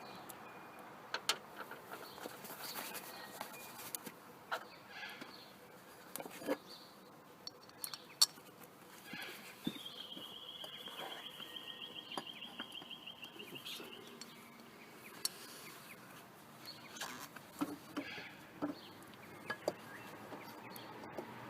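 Scattered clicks and clinks of hand tools and metal parts being handled during work on a car engine, the sharpest about 8 s in. From about 10 s in, a bird sings one rapid high trill for about four seconds.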